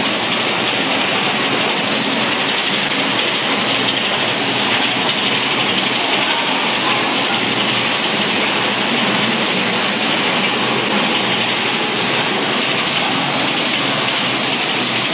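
Snack-food production line machinery running: a steady, loud mechanical noise with a constant high-pitched whine.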